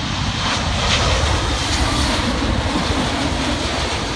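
Jet engines of a Boeing 787 airliner on short final passing low overhead, a loud steady rush, with gusty wind buffeting the microphone.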